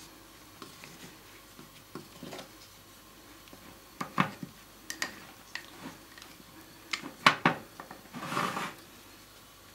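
Spatulas clicking and knocking against a ceramic cup and the ice cream rolls as the rolls are lifted and packed into the cup: scattered taps, the sharpest a few together about seven seconds in, then a short scrape near the end.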